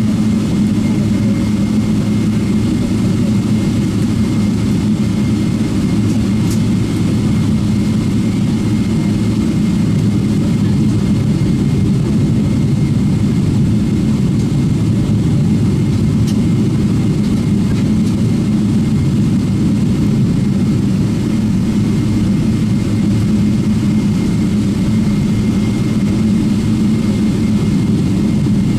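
Boeing 777-300ER's GE90-115B turbofan engines running steadily at taxi power, heard from inside the cabin: an even low rumble with a faint steady high tone over it.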